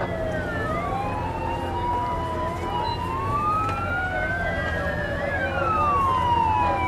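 Several emergency vehicle sirens wailing at once, their slow rising and falling pitches overlapping, over a steady low engine hum.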